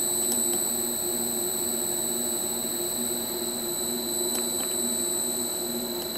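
Two-horsepower three-phase lathe motor running slowly on a Huanyang variable frequency drive at 20 Hz, a low hum that pulses gently under a steady high-pitched whine from the drive's switching. A few faint clicks sound over it.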